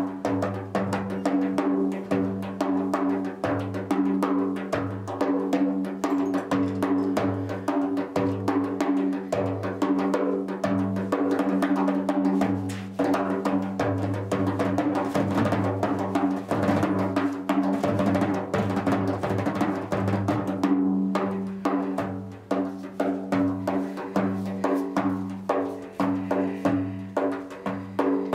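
Large frame drum played by hand, a fast, even stream of strikes with a steady low ringing tone held beneath them, as part of an improvised percussion soundscape.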